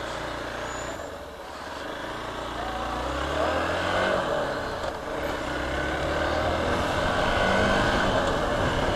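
Hero Xpulse 200 4V's single-cylinder engine running while the motorcycle is ridden, with wind noise over it, growing louder from about two seconds in as it picks up speed.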